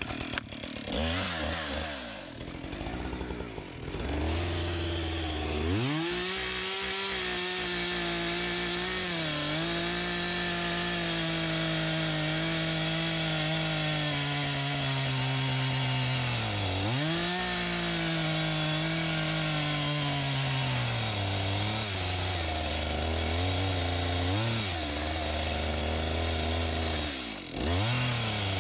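Husqvarna 576 XP two-stroke chainsaw with a 24-inch bar: it catches and runs low for a few seconds, then goes to full throttle and holds high revs for about fifteen seconds while cutting the log, sagging twice under load. It then drops back to idle with a few quick throttle blips.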